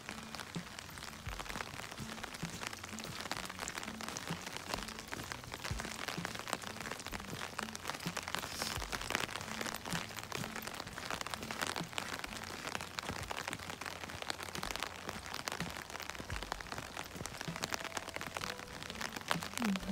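Light drizzle falling: a steady hiss dotted with many small ticks of drops.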